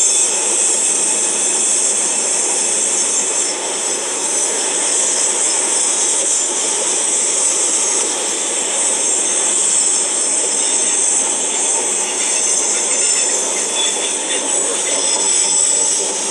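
Freight train cars rolling past: a steady rush of steel wheels on rail, with a high, steady squeal above it.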